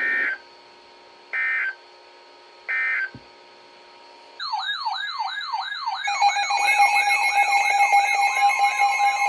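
Three short warbling data bursts about 1.4 s apart: the Emergency Alert System end-of-message code closing a broadcast weather alert. About four seconds in, a loud electronic alarm starts. Its siren-like tone falls in pitch about three times a second, and steady tones join it about two seconds later.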